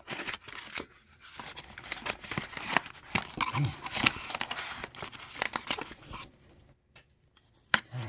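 Cardboard product packaging being handled and opened: scraping and rustling with many small clicks and taps, stopping about six seconds in.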